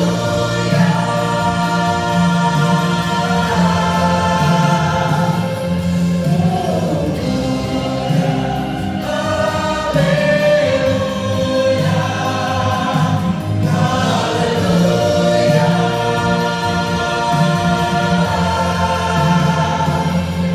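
Vocal group singing a Christian gospel song in harmony, with voices held and moving together over steady low notes.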